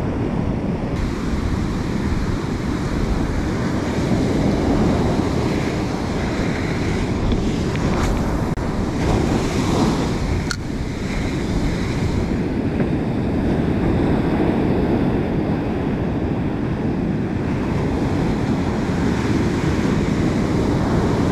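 Ocean surf breaking and washing up a sandy beach, with wind buffeting the microphone. A single sharp click comes about ten seconds in.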